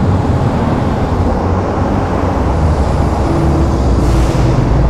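Royal Enfield single-cylinder motorcycle running inside a road tunnel, with a steady rumble of engine and traffic noise. A brief hiss comes about four seconds in.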